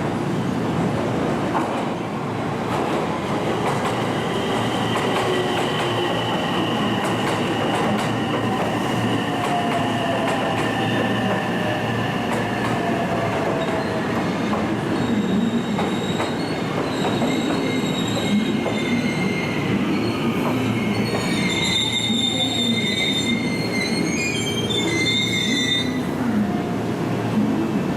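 Train running through the station with its wheels squealing, several high-pitched tones over a steady rumble of running noise. One tone slowly falls in pitch in the first half, and a cluster of higher squeals comes in the second half.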